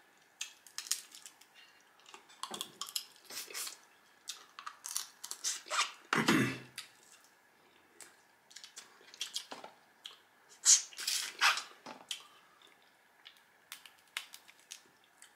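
Crab legs being cracked and picked apart by hand close to the microphone: an irregular string of short shell cracks and wet clicks, with a few louder snaps.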